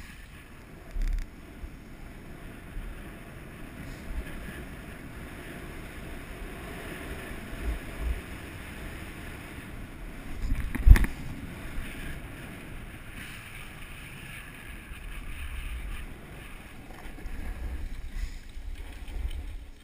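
Steady hiss of sliding over packed snow mixed with wind noise on the camera microphone during a downhill run, with a few small knocks and one loud thump just past halfway.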